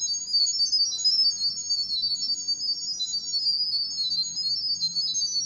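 Sound-wave pairing tones for a Mountdog B30 video doorbell: a rapid string of high-pitched electronic beeps hopping quickly between several pitches, carrying the network details to the doorbell during pairing.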